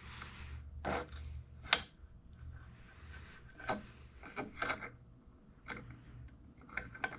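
Scattered clicks and knocks of small metal engine parts and tools being handled and fitted, the sharpest knock about two seconds in, with a few quieter taps and rubs after it.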